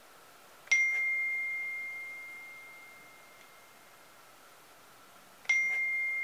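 Two bell-like dings, one about a second in and another about five seconds later. Each is a single clear high tone struck sharply that fades slowly.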